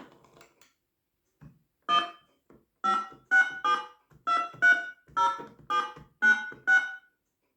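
Keys on the dial pad of a red M&M novelty phone pressed one after another, each press sounding a short electronic note at a different pitch: about ten notes, mostly about half a second apart, as a phone number is keyed in.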